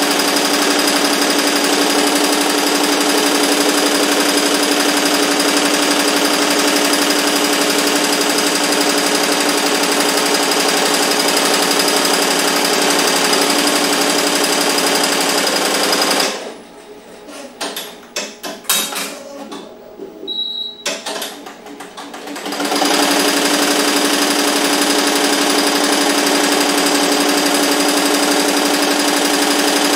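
Barudan multi-needle embroidery machine stitching a logo onto a cap, running steadily at speed. About sixteen seconds in it stops for roughly six seconds with scattered clicks, then starts stitching again.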